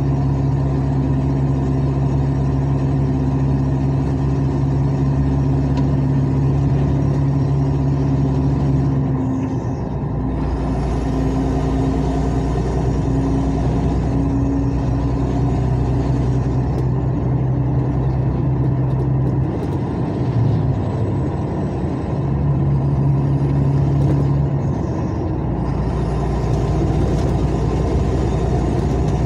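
Car engine running with a burst exhaust pipe section, so the exhaust blows out nearly unmuffled, straight-pipe style. A loud, steady low drone whose note dips and shifts about a third of the way in and again about two-thirds through.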